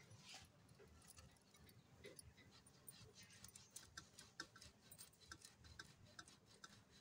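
Faint, irregular ticks and scrapes of a boiled potato being grated on a stainless-steel box grater, several a second and more frequent in the second half.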